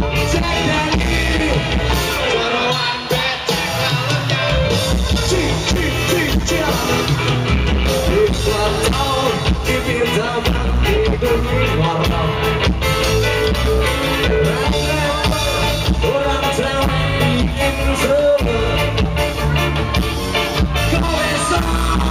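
Live band playing amplified through PA speakers: electric guitars, bass and a drum kit keeping a steady beat, with a singer's vocal over them.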